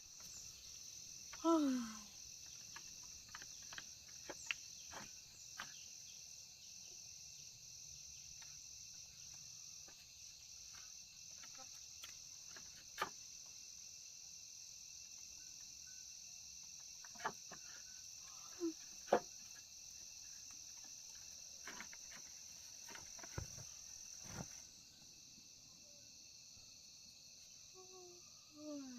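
Night chorus of crickets: a steady high-pitched trill that thins out near the end, with scattered sharp clicks and a short call sliding down in pitch about a second and a half in and again near the end.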